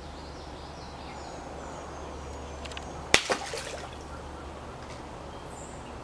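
Steady outdoor background noise with a low hum, and a few faint bird chirps. A single sharp click or knock comes about three seconds in.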